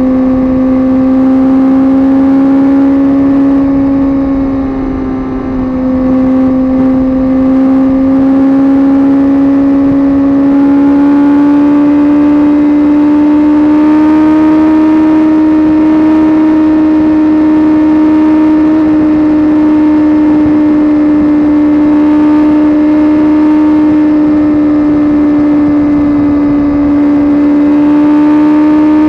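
Suzuki GSX-R sport bike's inline-four engine running steadily under way, its pitch climbing slowly, with a brief dip in pitch and loudness about five seconds in.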